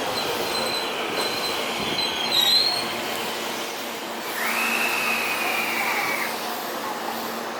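Train wheels squealing on the rails as a train moves slowly. A thin high squeal fades out about three seconds in, and a second, lower squeal holds from about four to six seconds in, over the steady running noise.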